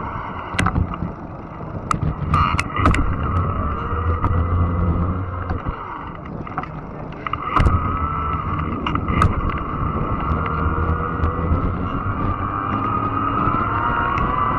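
Fat-tire electric bike riding along a trail: a steady electric-motor whine that rises slightly near the end, over a low rumble of tyres and wind, with scattered sharp clicks and knocks.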